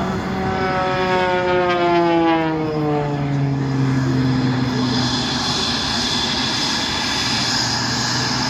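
Aircraft engines: a loud pitched drone that falls steadily in pitch over the first four seconds, followed by a steady high jet whine.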